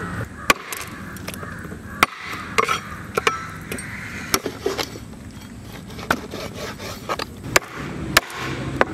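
Knife chopping on a wooden board: about a dozen sharp, irregular knocks, spaced roughly half a second to a second apart.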